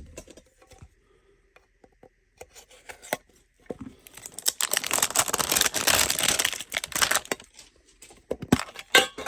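Plastic shrink wrap being torn and crinkled off a small card tin, densest from about halfway through to near the end. Light clicks and taps of handling come before and after it.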